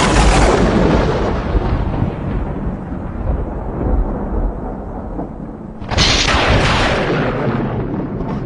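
Thunder sound effect: a sharp thunderclap that rolls off into a long, slowly fading rumble, then a second clap about six seconds in that fades the same way.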